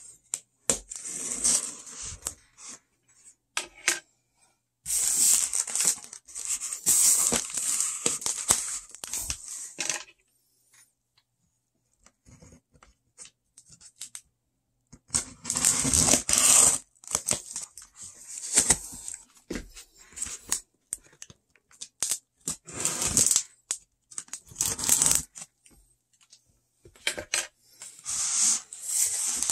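Cardboard shipping box being handled and opened: packing tape ripping and cardboard scraping and rubbing, in spells of a few seconds with a short quiet pause in the middle.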